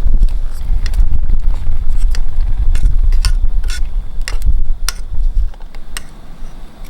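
Wind buffeting the microphone with a heavy low rumble that eases near the end, over scattered sharp clinks and taps of cooking utensils and cookware.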